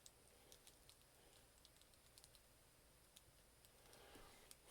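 Near silence with faint scattered light clicks, typical of a small plastic action figure and its packaging being handled.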